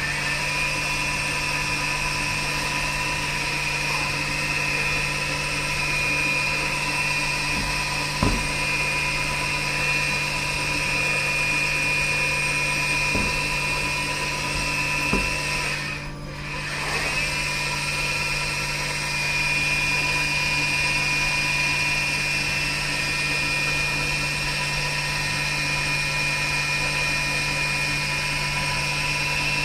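CNC wire-cut EDM machine running: a steady low hum with a high-pitched whine over it and a few light clicks. The sound dips briefly about sixteen seconds in.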